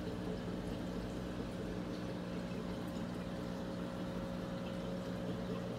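Saltwater reef aquarium running: a steady pump hum with water moving and trickling through the tank.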